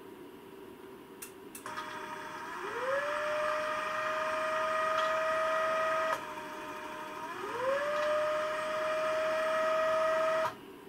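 The SP-668 antenna filter's stepper motor and gear train whine as they turn the variable capacitors to retune the filter. There are two runs: each starts as a steady tone, slides up in pitch and holds, with a break about six seconds in, and the sound stops just before the end.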